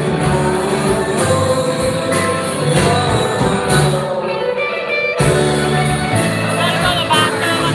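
Live band playing electric guitar, keyboards and drums. The low end drops out briefly about four seconds in, and the full band comes back in about a second later.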